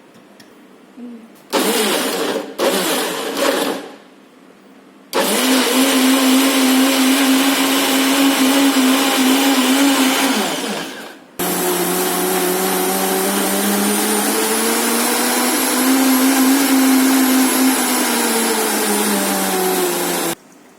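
BL 767 commercial heavy-duty blender blending juice: its motor is pulsed in three short bursts, then run twice for several seconds at a time. The first run winds down, and the second, with its pitch rising slightly and then falling, cuts off suddenly near the end.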